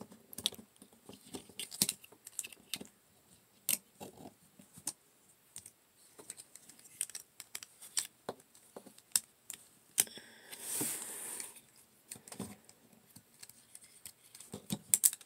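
Plastic Transformers Waspinator action figure being handled and posed: a scattered string of small clicks and taps from its joints and parts, with a short rustle about ten and a half seconds in.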